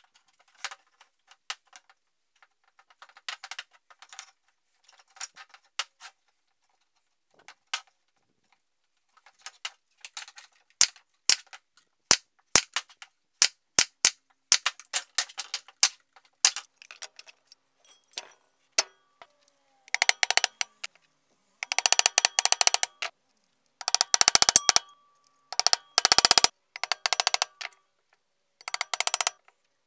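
Workshop tool noise from building a plywood jig: scattered faint clicks and taps at first, then single sharp snaps from about ten seconds in. In the second half come dense rattling bursts about a second long.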